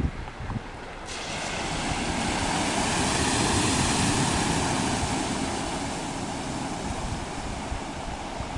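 Rushing floodwater: a steady roar of water that comes in abruptly about a second in, swells to its loudest midway and then slowly eases.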